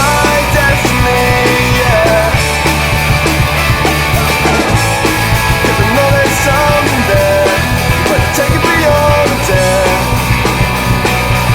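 Melodic rock band playing an instrumental passage: electric guitars, bass guitar and drums. A lead line with short bent notes runs over the band.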